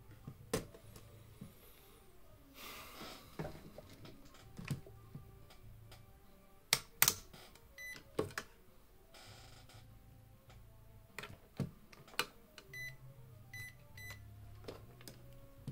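Irregular clicks, taps and knocks of tools and parts being handled on a workbench, with two brief rustling noises and a few short high beeps near the end.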